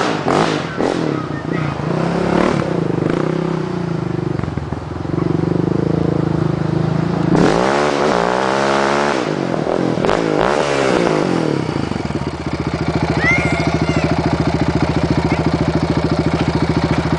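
Yamaha Raptor 700R ATV's single-cylinder four-stroke engine revving and getting louder as the quad rides up a gravel road toward the microphone, loudest about eight to ten seconds in. It then settles into a steady, pulsing idle about twelve seconds in.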